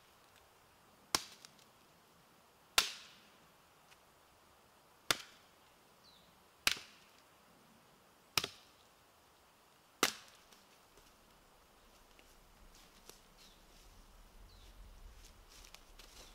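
Hatchet chopping into a stick of wood: six sharp strikes, about one every one and a half to two seconds. After the last strike come faint rustles and crunches of dry leaves underfoot.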